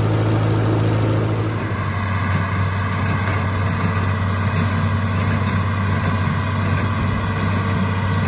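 Tractor engine running steadily close by. About a second and a half in, it gives way to a John Deere tractor and a New Holland small square baler running together in the field.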